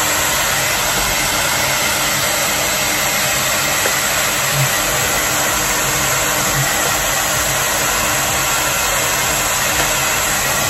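Handheld hair dryer running steadily: a constant rush of blown air with a faint steady hum underneath.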